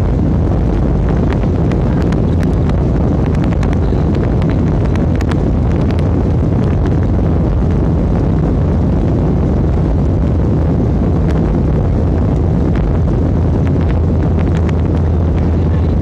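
Jet airliner's engines and wheels heard from inside the cabin as it rolls along the runway: a loud, steady rumble with a strong low hum and scattered light clicks and rattles.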